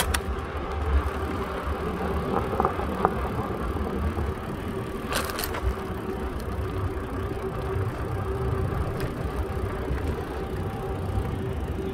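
Wind buffeting the microphone and tyre rolling noise from a moving bicycle, under a faint steady hum. There is a brief rattle about five seconds in.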